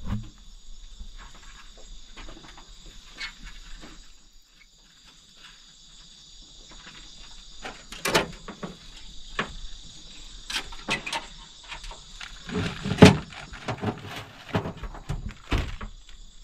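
Steady high-pitched chorus of night insects. Over it come scattered knocks, snaps and rustles of hands tying a fishing line among branches, loudest about 8 and 13 seconds in.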